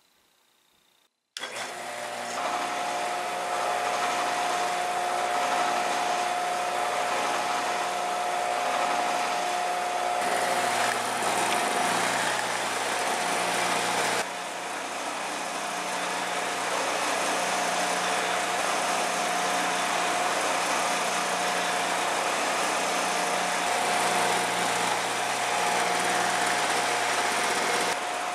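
Shopsmith Mark V woodworking machine running steadily at speed, a steady high-pitched whine over a low hum and broad mechanical running noise. It comes in abruptly about a second in after near silence, and drops slightly in level about halfway through.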